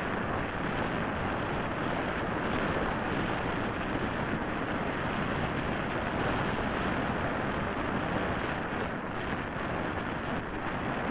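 Steady rushing wind noise on the microphone of a camera riding on a moving bicycle, mixed with tyre noise on the road.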